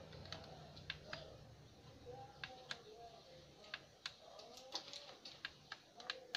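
Faint, sharp clicks and ticks at an irregular pace, a few a second at most, over a quiet background.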